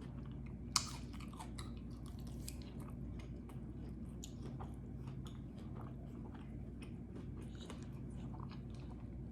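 A person chewing food, with many small mouth clicks and one sharper click about a second in, over a low steady hum.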